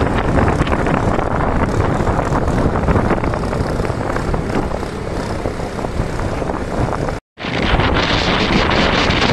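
Wind buffeting the microphone of a moving motorbike, a steady low rumble mixed with engine and road noise. The sound cuts out completely for a moment about seven seconds in.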